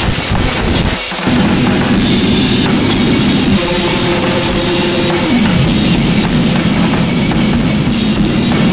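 Harsh noise music: a loud, dense wall of distorted noise across the whole range, with a short drop-out about a second in and a few held tones that cut off near the middle.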